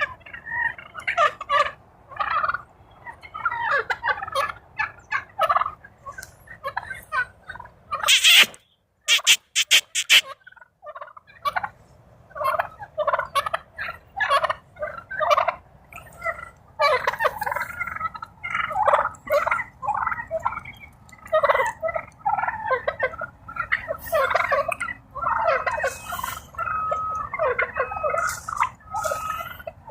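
A flock of wild turkey toms gobbling, many short calls overlapping one after another. About eight seconds in there is a brief break with a few sharp clicks, and near the end a steady tone repeats several times.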